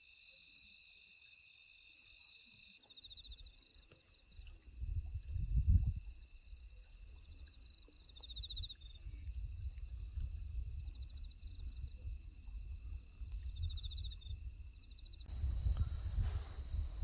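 Chorus of crickets and other insects trilling steadily at several high pitches, with irregular bursts of low rumble.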